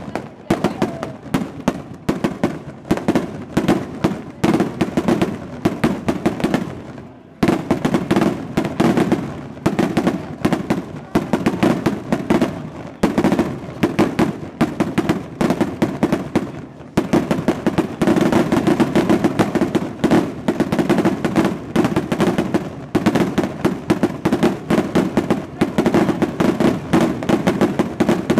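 Fiesta fireworks going off in a dense, rapid barrage of sharp bangs, many a second. There is a brief lull about seven seconds in.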